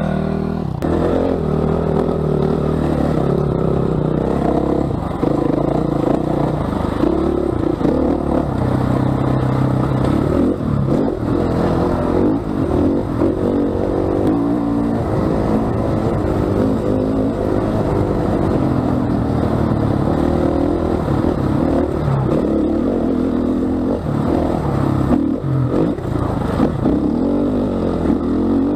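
KTM 500 EXC's single-cylinder four-stroke enduro engine, heard up close from the rider, revving up and down with the throttle as it rides a rough dirt trail. The bike clatters over the bumps.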